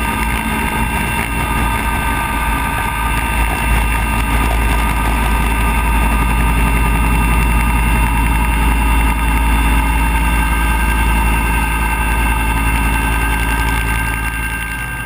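Bell 212 helicopter in flight, heard from a camera mounted under its fuselage: the twin turboshaft engines give a steady high whine over a heavy low rumble from the rotor.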